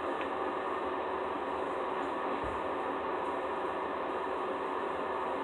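Steady background hiss with a faint hum, and a soft low thump about two and a half seconds in.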